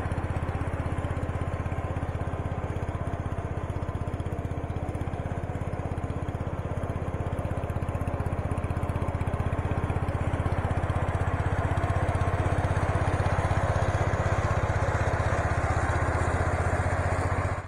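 Case 444 garden tractor's single-cylinder Kohler engine running steadily under load with its 48-inch J46 mower deck engaged, cutting grass. It grows a little louder in the second half as the tractor passes close.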